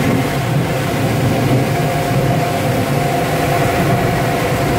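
Automatic car wash air dryer blowers running, heard from inside the car: a loud, steady rushing hum with a constant whine, at the drying stage of the wash.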